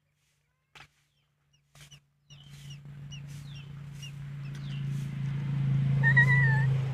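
Newly hatched Muscovy ducklings peeping in short, high, downward-slurred chirps, repeated about twice a second. Under them, from about two seconds in, a low steady motor hum rises in level. A brief wavering higher tone comes near the end and is the loudest sound.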